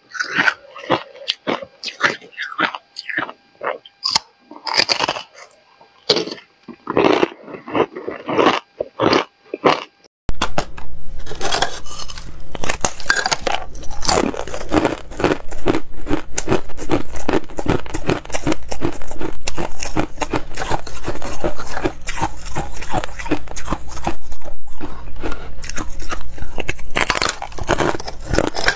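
Ice being bitten and chewed close to the microphone. For the first ten seconds there are separate sharp crunches with quiet gaps between them. Then, after a sudden change, dense continuous crunching and chewing of frosted ice slabs runs over a low steady hum.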